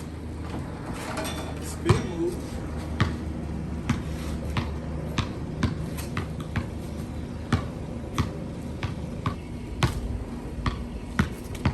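A basketball bouncing on a hard surface: sharp, irregular thuds about once or twice a second, over a steady low hum.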